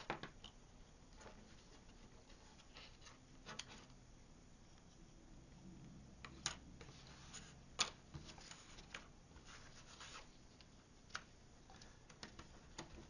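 Faint handling of card pieces: light rubbing with a scattering of sharp little clicks and taps at irregular intervals as the pieces are flipped over and fitted together.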